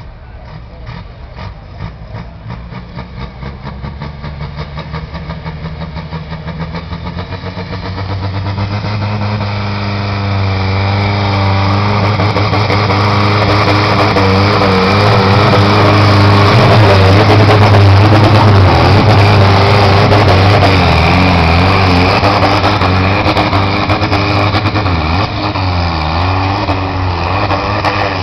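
Tractor-pull tractor's diesel engine hauling a weight-transfer sled. It starts at a low, pulsing run, then builds from about eight seconds into a loud, steady full-throttle pull under heavy load. Near the end the engine note wavers as the load bogs it.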